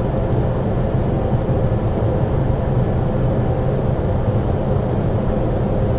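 Steady flight deck noise of an Airbus A320neo on final approach: air rushing past the cockpit and the engines, with a faint steady hum.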